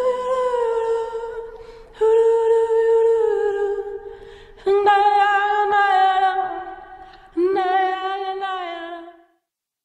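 Song outro with the beat dropped out: a lone voice holding long wordless notes, four phrases in turn, each starting sharply and fading away. The track ends a little after nine seconds in.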